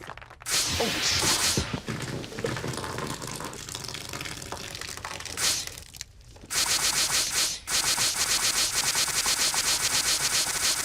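Harsh, noisy comedy sound effects, ending in a loud, fast, rattling buzz that starts about six and a half seconds in.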